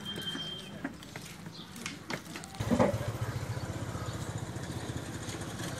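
A few light clicks and taps, then, about halfway through, a small engine starts with a loud burst and settles into a steady idle with a rapid, even pulse.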